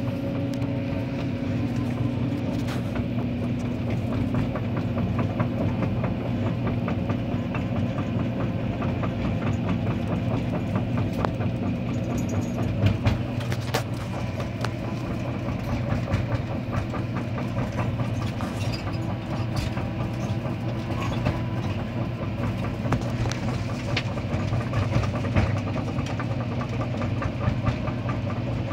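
Kobelco SK200 excavator's diesel engine running steadily under load, heard from inside the cab, with frequent small rattles and clicks from the machine as it carries a large boulder in its bucket.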